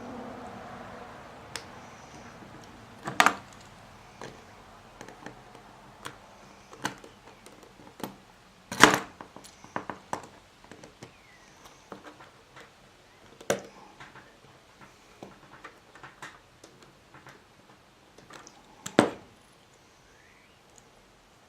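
Scattered clicks and small knocks of a plastic replacement plug, screwdriver and wire being handled as a wire is fastened under a terminal screw, with four louder knocks spread through it.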